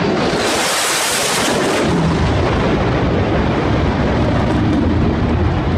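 Military jet fighter making a low pass: a loud rush of jet noise, hissing and brightest for the first couple of seconds, then settling into a deep, steady rumble as it goes by.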